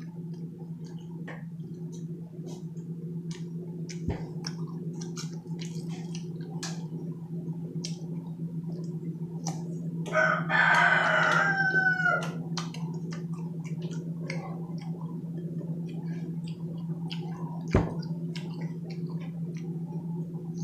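Crisp mouth sounds of crunchy raw green mango being chewed, scattered clicks over a steady low hum. About ten seconds in, a rooster crows once for about two seconds, the loudest sound.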